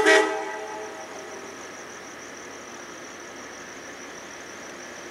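A short, loud train-horn toot right at the start, rich in tones, that rings away over about a second and a half. Under it is the steady idle of the train's BL36PH diesel locomotive.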